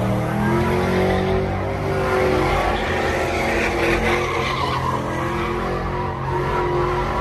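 Pickup truck engines held at high revs while their rear tyres spin and squeal in burnout donuts, the tyre squeal growing louder around the middle.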